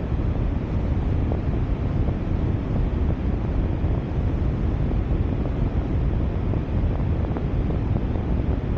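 Steady low wind rumble on the microphone of an action camera on a moving car, mixed with road and traffic noise.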